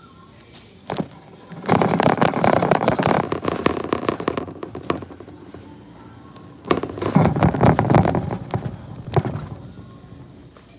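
Wire shopping cart rattling and clattering as it is pushed along, in two bursts of about three seconds each.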